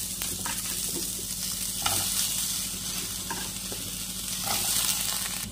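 Cut green tomato pieces sizzling steadily in a hot, dry kadai, with a few light knocks as more pieces drop into the pan.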